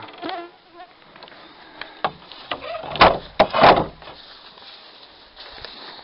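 A flying insect buzzing, swelling to its loudest about three to four seconds in, with a few faint clicks around it.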